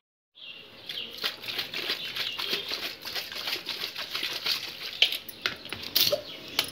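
Ice cubes and liquid rattling rapidly inside a glass capped with an upturned steel tumbler as it is shaken by hand to mix kulukki sarbath. The fast clatter starts about half a second in, with a few louder knocks near the end.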